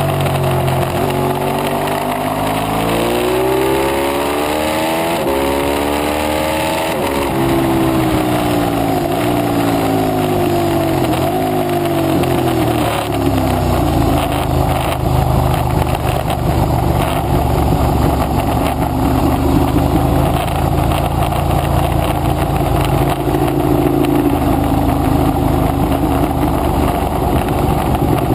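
Ducati 848 Evo's 90-degree L-twin engine at track speed, heard from the rider's seat: the revs dip, climb for about five seconds under acceleration, drop sharply, then fall away. From about halfway a steady rush of wind on the microphone partly buries the engine, which picks up again near the end.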